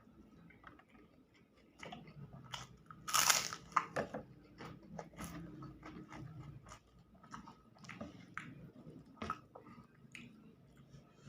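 A person eating close to the microphone: biting and chewing, with many short mouth clicks and crunches, the loudest a burst about three seconds in.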